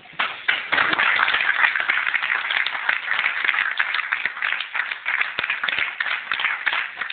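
A room of people applauding: dense hand-clapping that breaks out suddenly just after the start and keeps going throughout.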